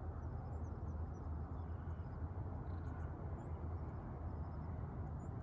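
Outdoor ambience: faint, scattered high bird chirps over a steady low rumble.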